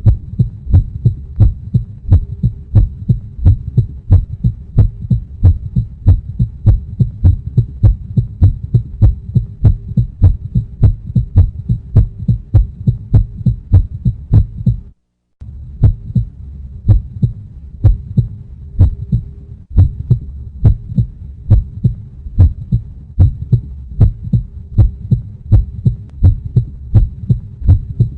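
Heartbeat sound effect: regular low thumps at about two a second over a faint steady hum, cutting out briefly about halfway through.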